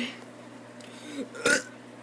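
A child's short, abrupt burp about one and a half seconds in, with a faint throaty sound just before it.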